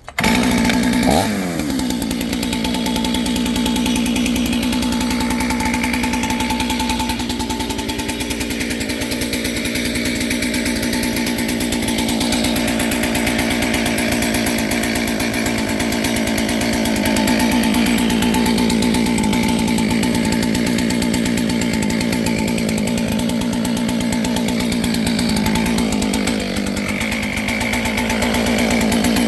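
Two-stroke engine of a kit-built clone chainsaw starting abruptly, dipping in pitch about a second in, then running steadily with small rises and falls in speed. The owner thinks the saw needs tuning.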